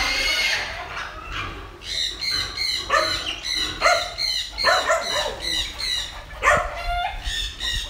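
Wild boar piglets squealing: many short, high-pitched cries in quick succession, the distress squeals of piglets being caught by hand.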